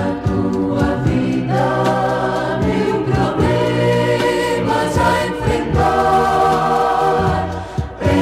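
Gospel choir singing in harmony over a band accompaniment, with sustained chords changing every second or two.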